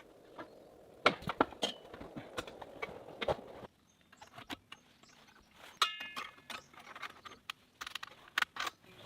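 Irregular clicks, taps and knocks of parts being handled and fitted, with a short squeak about six seconds in.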